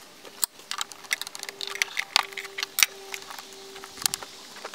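Hard plastic clicks and knocks from a Volvo S80's air filter housing lid being pushed and worked down over the filter box to clip in its three rear tabs.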